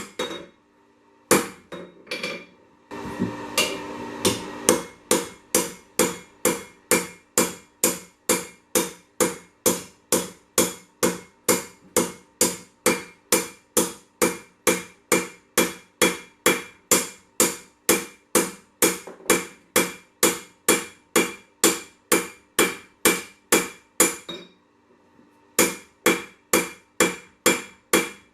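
Hand hammer striking hot 1085 carbon steel on an anvil, drawing the bar out in a steady rhythm of about two ringing blows a second, with a short pause near the end. A brief burst of steady noise comes about three seconds in.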